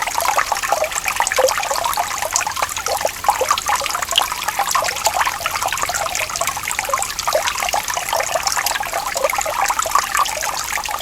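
Running water trickling and burbling steadily, with a dense, constant patter of small splashes.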